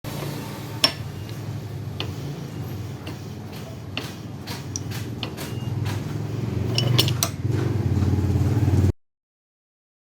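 Steady low motor hum that grows louder over the last few seconds, with scattered sharp metallic clicks and taps, the loudest just under a second in. The hum cuts off suddenly near the end.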